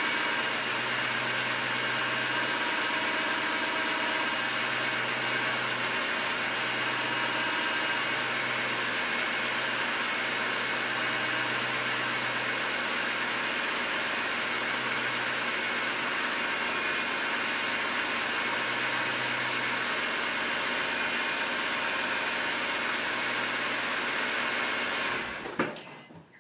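BMW M3 inline-six engine idling steadily, its VANOS unit freshly rebuilt with anti-rattle parts, new seals and solenoid pack and a reinforced hub. Near the end it is switched off: a short knock, then the engine sound cuts off.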